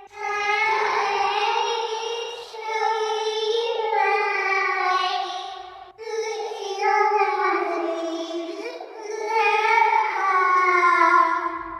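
A high, child-like voice singing slow, drawn-out notes as a creepy-doll horror sound effect. It pauses for an instant about six seconds in, starts a second phrase, and fades out near the end.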